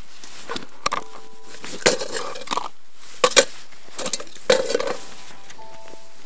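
Irregular rustling and crunching of nylon tent fabric, clothing and packed snow as a person crawls into a tent vestibule, with about a dozen sharper crunches.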